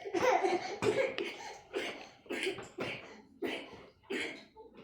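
A wooden cooking stick pressing and turning stiff ugali dough in a metal sufuria (cooking pot), giving a rhythmic run of dull knocks and scrapes about every half second.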